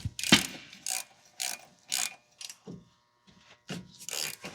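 Hand ratchet wrench turning out the 24mm brake caliper bracket bolts, a short burst of ratchet clicks about every half second with a pause near three seconds in.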